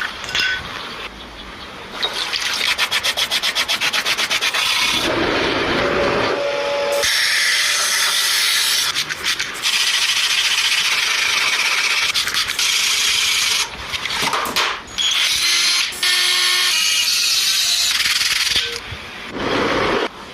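Abrasive rubbing on a rusty steel knife blade, as in sanding or filing off rust, in repeated passes that start and stop. A couple of seconds in comes a run of quick back-and-forth strokes.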